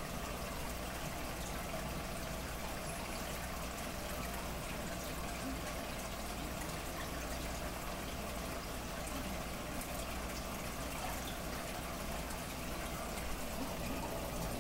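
Aquarium water bubbling and trickling steadily, over a low steady hum.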